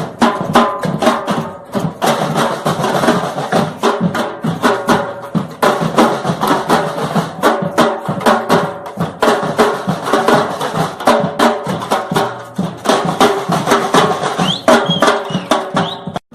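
Percussion band drumming a fast, dense rhythm, many strikes a second, breaking off abruptly near the end.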